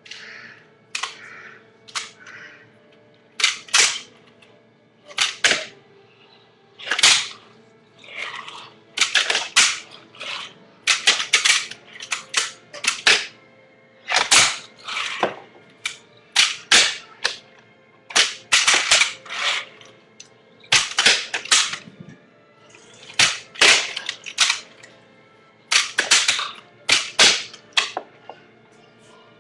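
Fingerboard clacking on a tabletop: repeated sharp pops and landings as ollie- and kickflip-style tricks are tried, irregular and often in quick pairs or short clusters.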